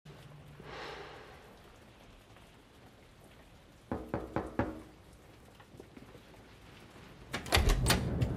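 Knocking on a door: about four knocks some four seconds in, then a louder, quicker round of knocks near the end. A low rumble of thunder and rain rises with the second round.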